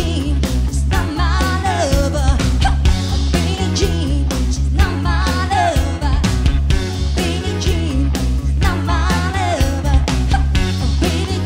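Live band music: a woman singing over a drum kit, guitar and keyboard, with a steady beat and heavy bass.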